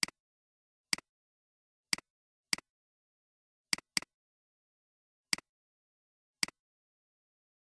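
Computer mouse clicks: eight sharp clicks at uneven intervals, each a quick press-and-release pair of ticks, with dead silence between.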